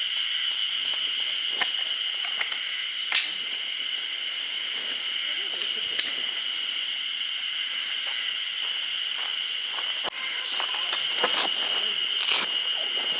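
Insects chirring in a steady, high-pitched chorus, with scattered sharp clicks and knocks of gear being handled; the loudest knocks come about three seconds in and twice near the end.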